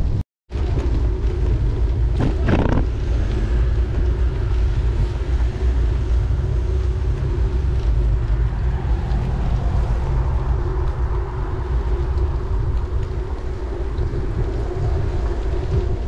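Steady low rumble of wind buffeting the microphone and tyre noise from a bicycle rolling on wet tarmac. A split-second drop to silence comes just after the start.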